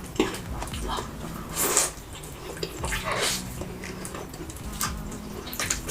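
Close-up eating sounds of a person chewing rice noodles: wet mouth clicks and smacks, with two longer slurps about one and a half and three seconds in.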